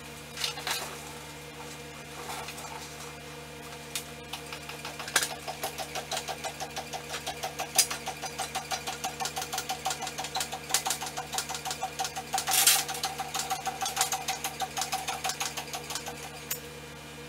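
Hydraulic scissor lift table being foot-pumped to raise a heavy steel lift runway. The pump clicks in a fast, even rhythm for most of the clip, with a few louder knocks and clanks among the strokes.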